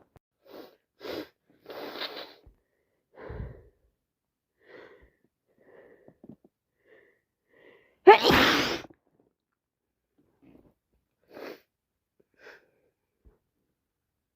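A woman sneezing once, loudly, about eight seconds in, after a run of short, quieter breaths as it builds, with a few faint breaths after it. The sneezing comes from a bad cold on top of allergies.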